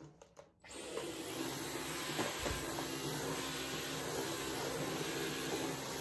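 Dyson V15 cordless stick vacuum starting up about a second in, after a few small clicks, then running steadily in Auto mode with an even whooshing hiss over a low hum; not especially noisy for a Dyson.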